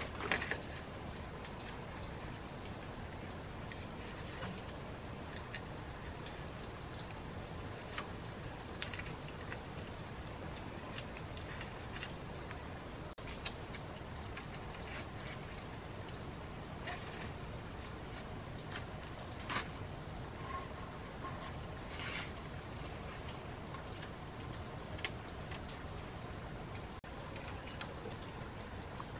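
Steady high-pitched insect trill, cricket-like, over a constant background hiss. A few faint clicks and taps are scattered through it, the most prominent just after the start.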